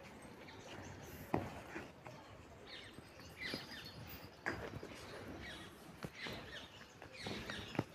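Faint, scattered short bird chirps that fall in pitch, with a few sharp clicks.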